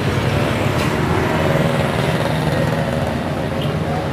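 Steady low rumble of motor vehicle engines running nearby, unbroken throughout.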